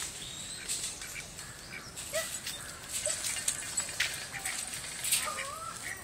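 Scattered short calls and chirps from several birds, some wavering, mixed with brief clicks.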